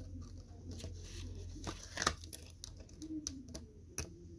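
Plastic pieces of a Klikbot toy figure being handled and fitted together: a scatter of light clicks and knocks, the sharpest about two seconds in and again near the end, over a low steady hum.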